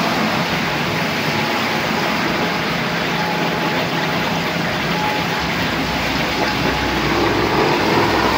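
Car tyres hissing through hail slush and standing water on a wet road, a steady spray noise, with a car coming nearer near the end.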